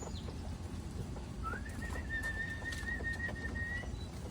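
A person whistling one long note that slides up, then holds steady for about two seconds.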